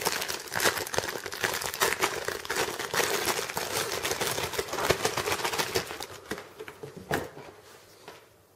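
Clear plastic packaging bag crinkling and rustling as it is handled, a dense crackle for about six seconds that then thins out to a few separate clicks and fades near the end.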